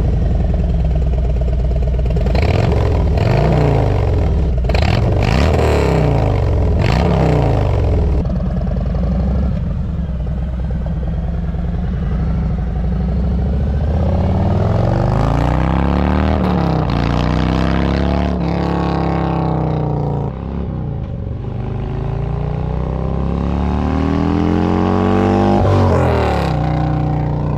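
Harley-Davidson Road Glide Special's Milwaukee-Eight 114 V-twin breathing through Tab Performance Zombie straight-through slip-on mufflers. It is revved several times at a standstill in the first eight seconds and settles to a steadier run. About fourteen seconds in it pulls away and rides past, its pitch climbing and dropping back as it goes up through the gears.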